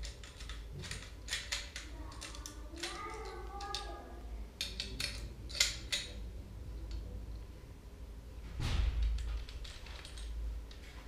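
Scattered sharp metallic clicks and taps from a short-track speed skate blade being fitted and clamped in a sharpening jig, with a brief scraping rustle about nine seconds in.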